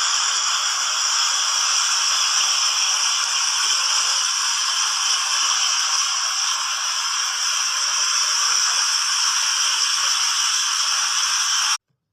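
Water fountain jets splashing, a steady hiss of falling water that cuts off suddenly near the end.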